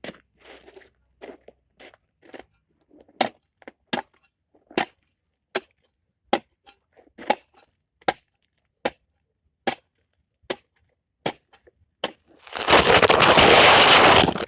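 Ice chopper striking and breaking up ice, one sharp crunching strike a little more than once a second. Near the end comes a loud burst of noise about two seconds long.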